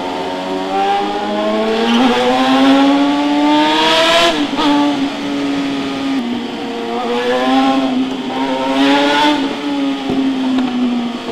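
Suzuki GSX-R600 K8 inline-four sportbike engine through an SC-Project full exhaust system, its pitch climbing over about four seconds, dropping sharply, then climbing and dropping twice more before easing to a lower, steadier note.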